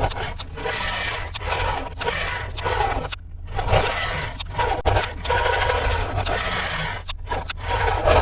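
Toy packaging being handled and unboxed: scraping and rustling with many quick taps and clicks, pausing briefly about three seconds in.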